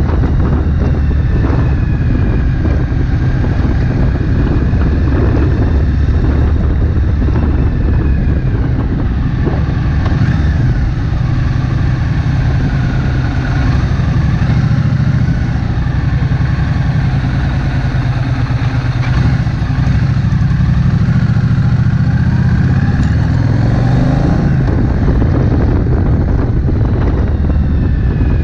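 Triumph Bonneville Street Twin's 900 cc parallel-twin engine running as the motorcycle is ridden, its pitch rising and falling with throttle and gear changes, under a steady low rumble.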